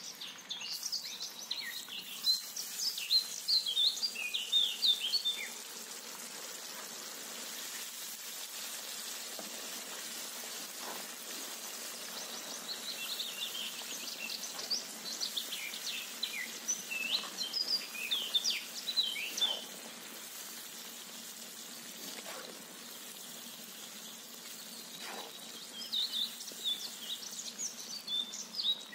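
Hot oil sizzling steadily in a cast-iron kazan as pieces of meat deep-fry. Birds chirp over it in busy bursts: in the first few seconds, again in the middle, and near the end.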